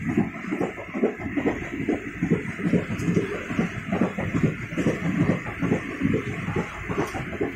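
Train running at speed: the carriage's uneven low rumble and clatter, with wind buffeting the microphone held out of the open window.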